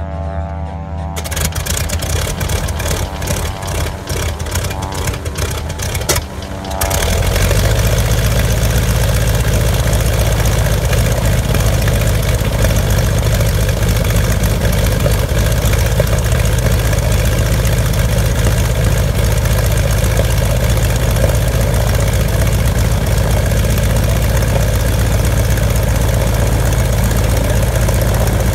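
Stearman biplane's radial engine starting: several seconds of cranking with uneven firing strokes, then it catches about seven seconds in and settles into a steady, loud idle.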